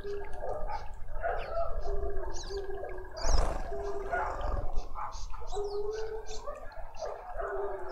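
Garden birds chirping and calling over the steady trickle and bubbling of a small fountain in a feeder's water basin, with short high chirps throughout, repeated low calls, and a brief louder rush about three seconds in.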